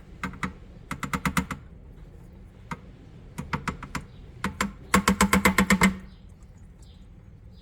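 Several short runs of quick, even mechanical clicks, about ten a second, the longest and loudest lasting about a second near the middle.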